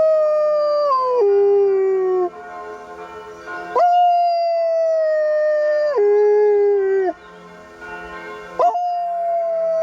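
Poodle howling in three long, drawn-out howls, each held on one note and then dropping in pitch before it breaks off, the second and third starting with a quick upward scoop. Church bells ring faintly underneath.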